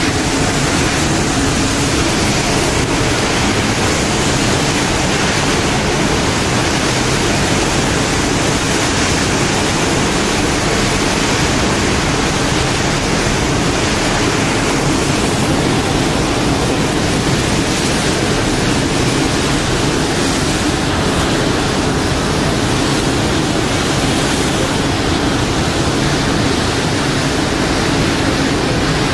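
Churning white water of a Nimitz-class aircraft carrier's wake, a steady loud rush with no breaks.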